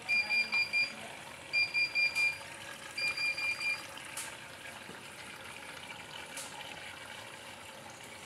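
Bosch washing machine's control panel beeping in three quick bursts of four high beeps: the alert that goes with the tap symbol lit, warning that no water is being drawn in.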